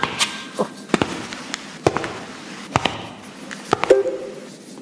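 About eight sharp taps or knocks at uneven intervals, then a short pitched note that starts near the end.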